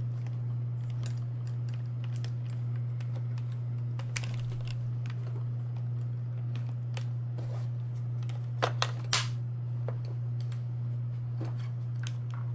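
Motorized display turntable humming steadily as it rotates, with scattered light clicks and ticks, three sharper clicks in quick succession about two thirds of the way through.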